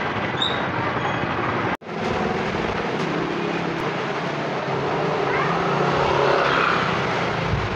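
Steady street traffic noise with passing vehicle engines. It cuts out for an instant about two seconds in, at an edit in the recording.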